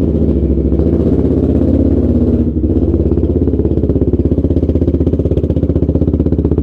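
Motorcycle engine running steadily, with a rapid even pulse from its firing that becomes more distinct about two and a half seconds in.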